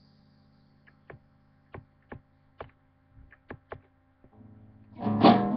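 Low steady hum with a scattering of faint clicks, then an acoustic guitar strummed again about five seconds in.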